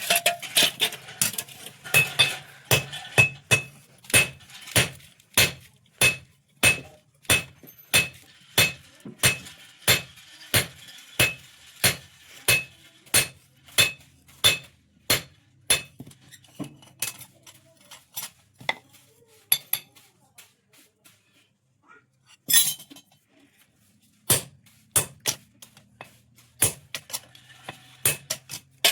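Hand hammer striking steel on an anvil, forging a sickle blade: ringing metallic blows in a steady rhythm of about two to three a second, then slower and more irregular after about sixteen seconds, with a pause and a single loud blow partway through.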